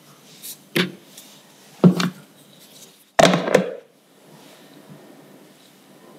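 A clear plastic food container being handled and its lid put on: three knocks with short plastic rattles, the loudest and longest about three seconds in as the lid goes on.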